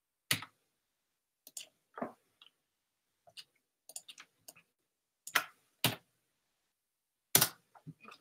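About a dozen irregular, sharp clicks from a computer mouse and keyboard being worked, with the loudest around the middle and near the end.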